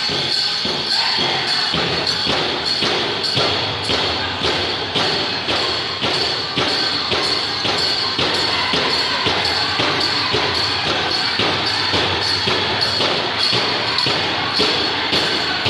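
Pow wow drum group playing a grass dance song: a big drum struck together in a steady beat under high singing voices.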